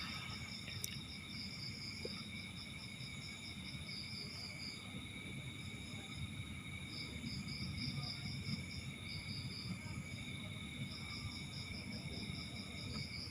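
Cricket chirping in long trains of rapid high pulses that stop and start, over a steady faint high-pitched whine and a low background rumble. A single sharp click about a second in.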